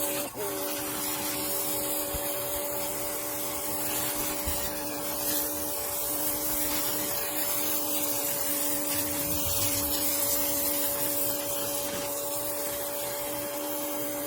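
A 2000 PSI pressure washer running steadily, its motor humming under the hiss of the water jet spraying plaster off carved stone.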